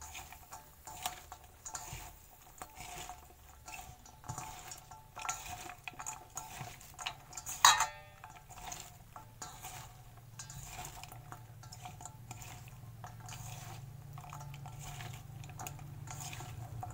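Hand mixing chopped bitter gourd, onion and garlic in a stainless steel bowl: frequent light clicks and knocks against the steel, with one louder ringing metal clink about eight seconds in.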